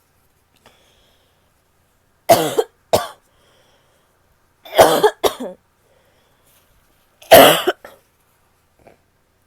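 A woman coughing in three bouts about two and a half seconds apart: a quick double cough, then a longer cough that breaks into several parts, then a single cough.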